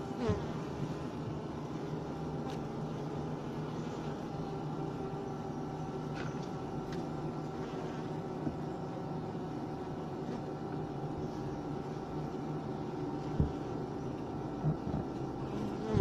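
Honeybee colony humming steadily inside a wooden Japanese-style box hive, a low even buzz of many bees. A few short knocks break in, the loudest about thirteen seconds in.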